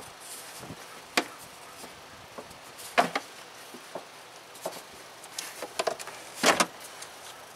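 Plastic air filter housing on a 2007 Toyota Highlander being bent open and the pleated air filter pulled out: a series of sharp plastic clacks and knocks, the loudest about three seconds in and again near the end.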